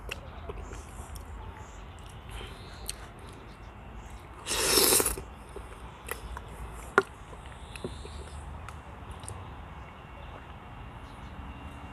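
Quiet eating sounds of a person eating raspberries off a metal spoon: soft chewing and small scattered clicks. About halfway through there is one short, loud rush of noise, and a single sharp click comes a couple of seconds later.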